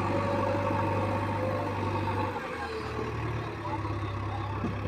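Heavy diesel engine of the earthmoving machinery running steadily, its hum dipping briefly about two and a half seconds in.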